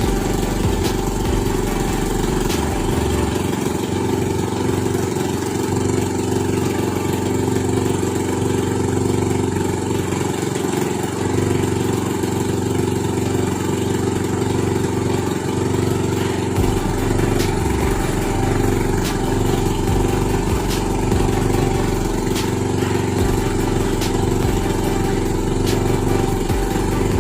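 A small engine running steadily at a constant speed, with a faint regular ticking over it.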